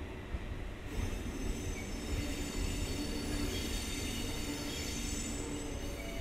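Train wheels squealing on the rails as a train moves through the station: several high, thin tones come in about a second in and die away near the end, over a steady low rumble.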